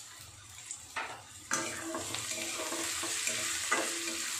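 Onions and capsicum frying in a hot oiled metal kadhai, with a metal spatula stirring and scraping them around the pan. The frying is faint at first and gets suddenly louder about a second and a half in, as the stirring starts.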